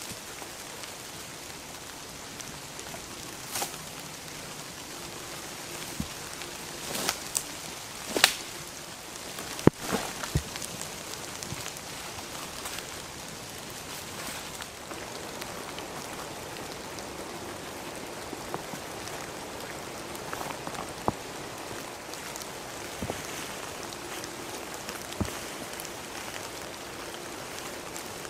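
Steady rain falling, with scattered sharp clicks, knocks and rustles of a backpack and tent being handled as the tent is pulled from its bag and spread out on the ground.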